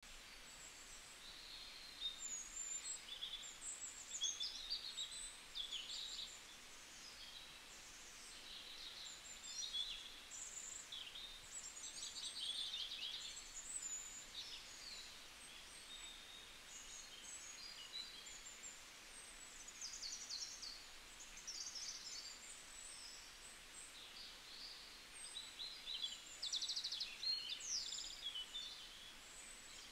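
Small birds chirping and trilling, many short high calls overlapping one another throughout, over faint steady background noise.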